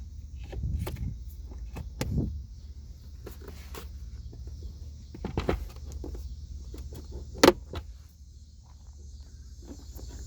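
Plastic rustling, scraping and small knocks as a cabin air filter is slid into its housing behind the glove box, with one sharp click about seven and a half seconds in.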